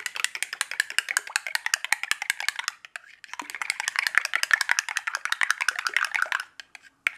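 Homemade yogurt being beaten in a ceramic crock, a utensil clicking fast against the crock's sides, about ten clicks a second, in two runs with a short pause about three seconds in.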